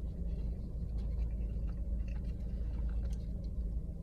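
Close-up chewing and mouth sounds of someone eating a buffalo chicken slider dipped in ranch: soft, irregular wet clicks and smacks. A steady low rumble runs underneath.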